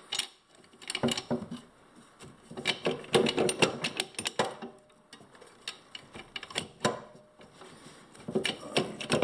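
Irregular clicks and light metallic clatter, in short clusters, as a pressure-washer pump is held against the engine's mounting and its bolts and nuts are worked into place by hand.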